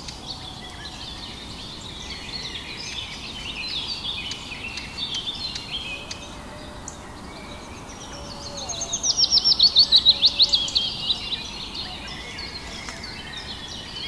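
Wild birds chirping and calling in the trees. About nine seconds in, one bird gives a loud, fast run of a dozen or so sharp notes, each dropping in pitch, lasting about two seconds.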